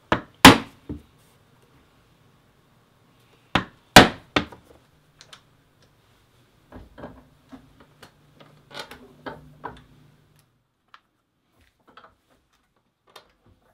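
A hand hole punch struck with a mallet, driving through thick vegetable-tanned leather to make snap holes: three sharp blows, a pause, then three more, the loudest about four seconds in. After that come lighter clicks and clunks as metal snap parts are set in a hand snap-setting press.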